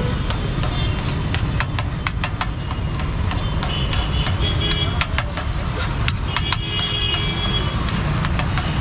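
Busy street noise: a steady low traffic rumble with frequent sharp clicks and taps, and faint voices.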